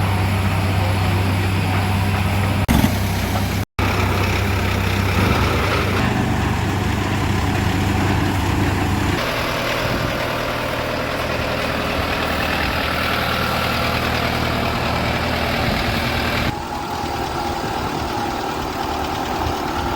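Tractor-mounted borewell drilling rig running under load: a heavy engine's steady drone with a rushing, noisy wash over it. The sound shifts abruptly a few times, with a brief dropout about 4 seconds in.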